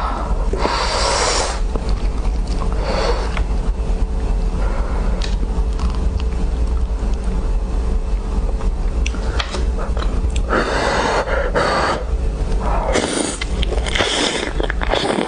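Close-miked eating sounds: chewing and mouth noises in irregular bursts with scattered small clicks, over a steady low hum.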